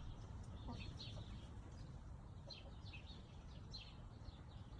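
Small birds chirping in the background, a scatter of short, high, falling chirps in little clusters, over a faint low rumble of outdoor background noise.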